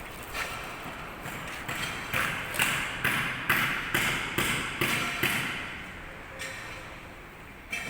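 A run of sharp knocks from a concrete block making machine, about two a second, growing louder then dying away after about five seconds, with a couple of weaker knocks near the end.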